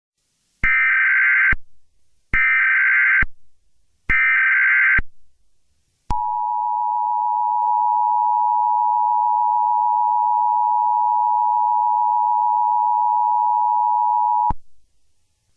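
Emergency Alert System SAME header: three bursts of digital data tones about a second each, then the EAS two-tone attention signal, a steady dual-tone beep held about eight seconds that cuts off sharply. Together they mark the start of an emergency alert broadcast.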